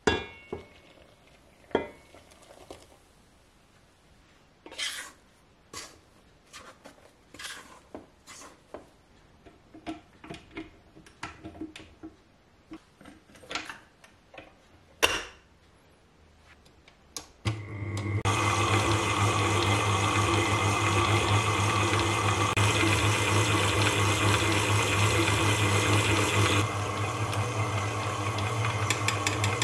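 Light clinks and knocks of a stainless steel mixing bowl and beater being handled. About halfway through, a stand mixer starts and runs steadily with a low motor hum, its flat beater working a sticky gluten-free bread dough, and the sound shifts a little near the end.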